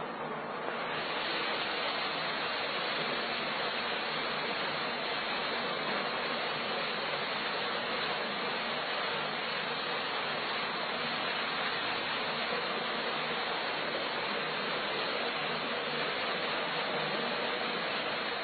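Steady, even hiss-like noise with no distinct events, growing slightly louder about a second in.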